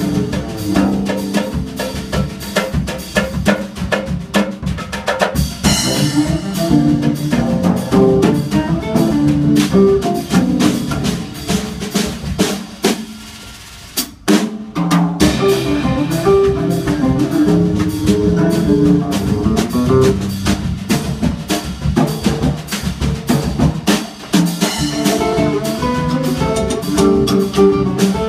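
Live instrumental samba on cello, nylon-string guitar and drum kit, with the drums to the fore. About halfway through the music drops quieter, stops for a moment and then comes back in at full strength.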